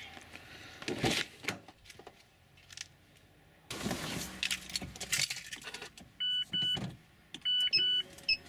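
A Mazda's door opened and someone climbing into the driver's seat, with keys jangling and knocks of handling. Then the car's electronic warning chime: two short beeps, then a quicker run of beeps near the end as the ignition is switched on without the engine running.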